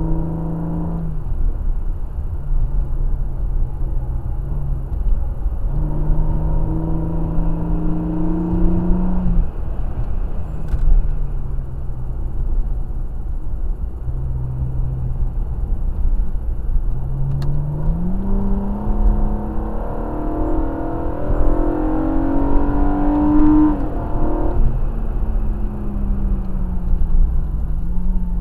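Car engine heard from inside the cabin while lapping a race track: the engine note climbs in pitch under acceleration, breaks off at each lift or gear change and starts low again, several times over. A steady road and wind rumble runs underneath, and the longest, loudest climb comes about three-quarters of the way through.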